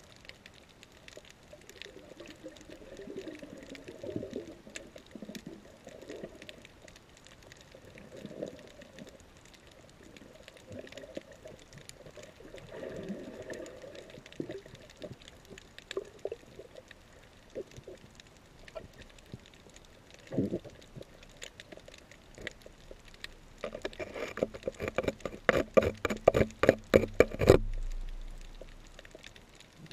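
Underwater reef ambience heard through a GoPro's waterproof housing: muffled, uneven surges of water with a faint scattered crackle. Late on comes a run of rapid, loud knocks lasting about three and a half seconds.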